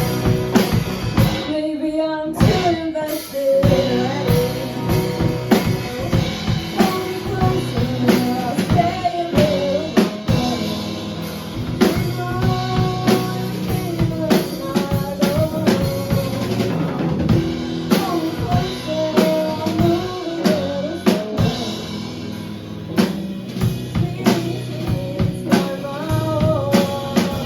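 Background music: a song with vocals over a drum kit with a steady beat.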